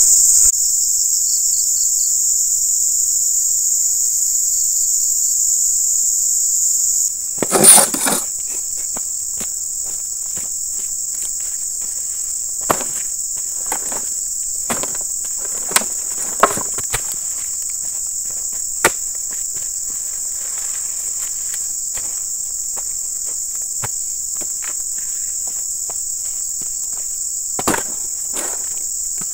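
Steady high-pitched insect drone, with scattered knocks and thumps as oil palm fruit bunches are handled and loaded onto a wheelbarrow. The loudest thumps come about eight seconds in, with more in the middle and one near the end.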